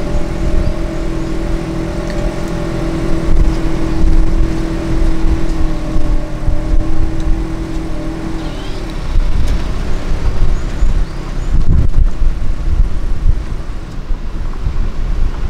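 A motor vehicle engine running close by: a steady low rumble with a hum in it that stops about eight and a half seconds in, leaving a rougher traffic rumble.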